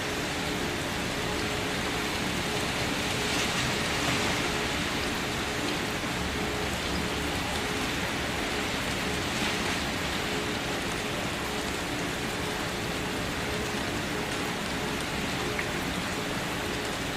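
Steady rain falling on a surface, an even hiss of drops that swells slightly twice. A few faint low steady tones hum beneath it.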